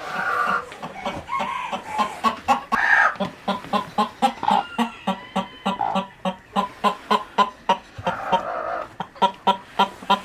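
Chickens clucking: a rapid run of short clucks, several a second, with a few longer drawn-out calls mixed in.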